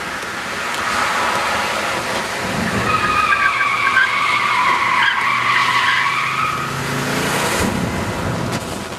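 Fiat Coupé cornering fast, its engine running under load, with its tyres squealing through the bend for several seconds in the middle.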